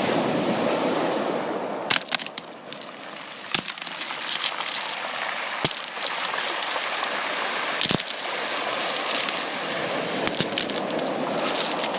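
Sea waves washing onto a beach: a steady rush of surf that swells and eases, with sharp crackles and clicks scattered through it.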